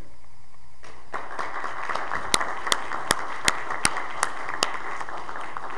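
A congregation applauding, starting abruptly about a second in. One nearby person's claps stand out, sharp and evenly paced at two to three a second.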